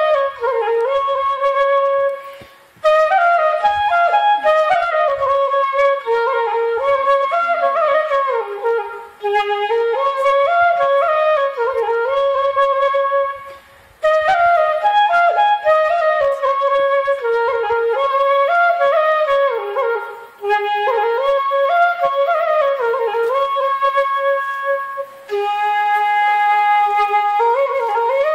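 Background music: a solo flute melody in flowing phrases, broken by short pauses.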